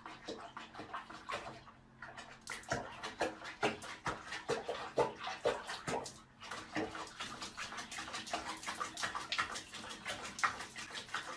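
Soapy bath water splashing and sloshing in a plastic basin as a cat is bathed: a quick, irregular run of small splashes and drips.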